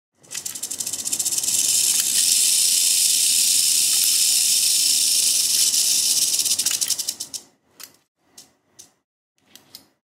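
Mojave rattlesnake rattling its tail in a loud, continuous high-pitched buzz: a defensive warning. The buzz builds over the first second and holds steady for several seconds, then stutters out into a few short bursts near the end.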